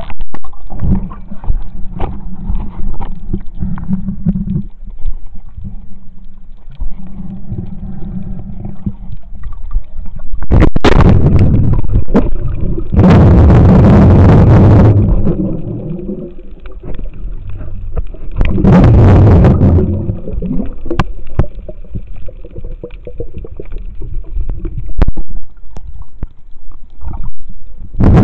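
Muffled underwater sound through a camera's waterproof housing: a constant low rumble with water gurgling and scattered clicks. Three louder rushing bursts, each lasting one to two seconds, come in the second half.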